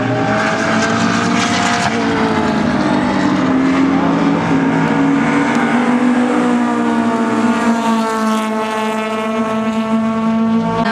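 Two race cars accelerating hard side by side in a standing-start sprint, engines running at high revs, their pitch climbing and then dropping back several times through the run.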